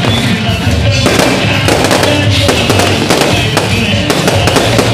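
Aerial fireworks bursting in a dense, rapid string of bangs and crackles, with music playing underneath.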